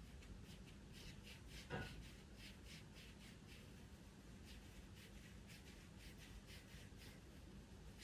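Faint scratching of a pastel pencil on pastel paper: quick short strokes, about three a second. There is one brief louder noise about two seconds in.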